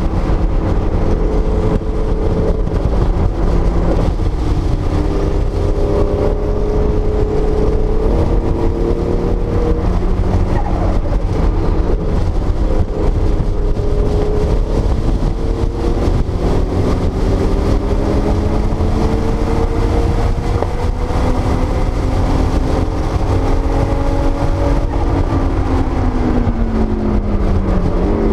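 1979 Porsche 930 Turbo's air-cooled, turbocharged 3.3-litre flat-six heard from inside the cabin at track speed, its pitch rising slowly in long pulls under power and falling away near the end as the car slows. Steady road and wind rumble underneath.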